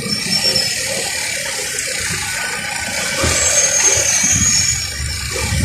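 A steady rushing hiss, strongest in the upper range, that swells a little about three seconds in and eases near the end.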